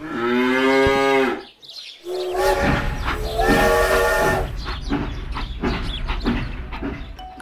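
Cows mooing, a few long calls, the first right at the start. From about two seconds in, a toy train runs along its plastic track with a low rumble and regular clicks under the moos.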